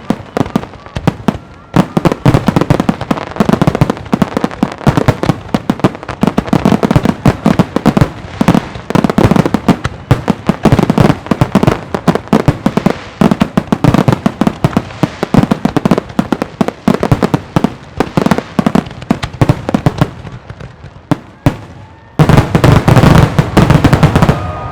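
Aerial fireworks shells bursting in a rapid, continuous barrage, several bangs a second, typical of a show's finale. The bangs thin out for a moment about twenty seconds in, then a last packed, very loud volley goes off near the end.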